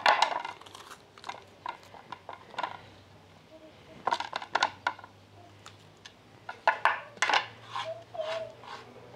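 A kitchen knife cutting through a crisp bell pepper on a wooden cutting board: sharp crunching cuts and knocks in a few clusters, with a loud cut right at the start.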